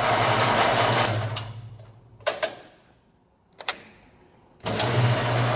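Electric wire stripping machine's motor running with a steady hum, then switched off about a second in and spinning down to a stop. Two clicks from the controls follow, and the motor starts again abruptly near the end, now switched to reverse.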